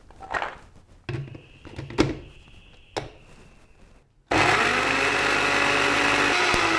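A few knocks as the blender jar is fitted onto its base. Then, about four seconds in, the electric blender's motor starts suddenly and runs loud and steady, its pitch rising a little as it spins up, chopping garlic cloves.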